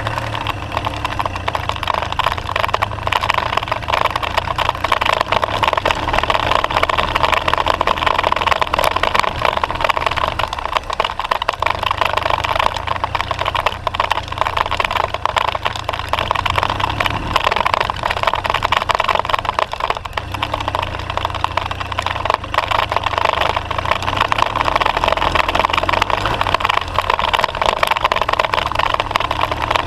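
BMW R 1200 GS Adventure's boxer-twin engine running steadily under load as the motorcycle climbs a rough gravel road, with a constant rough rumble over it and no pauses.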